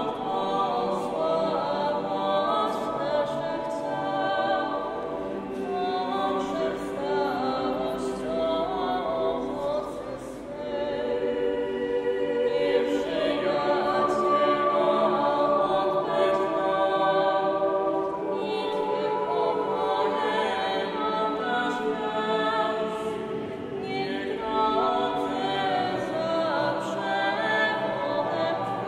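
Mixed choir of men and women singing unaccompanied in sustained, overlapping chords. The sound eases briefly about a third of the way through, then swells to its loudest.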